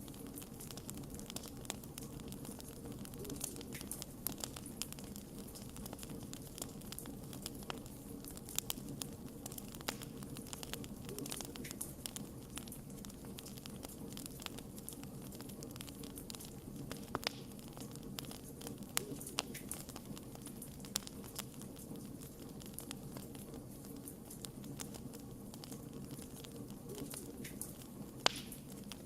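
Wood fire burning in a fireplace: a steady low rumble of flames with frequent small crackles and pops from the burning logs, one sharper pop near the end.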